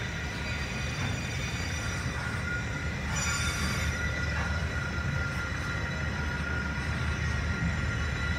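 Freight train of loaded log wagons rolling past over the level crossing: a steady low rumble of wheels on rail with high-pitched wheel squeal on top, briefly brighter about three seconds in.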